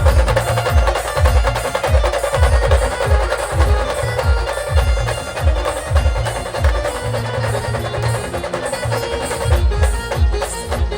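Live band music for an Ambabai devotional song: heavy drum beats under a keyboard melody.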